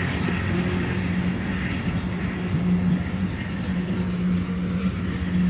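Freight train of open-top hopper cars rolling past at a level crossing, heard from inside a car: a steady rumble of wheels on rail with a steady low hum underneath.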